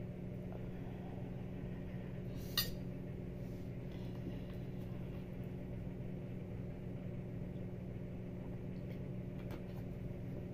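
A steady low hum, with one sharp clink of a metal fork on a ceramic plate about two and a half seconds in and a few faint light clicks near the end.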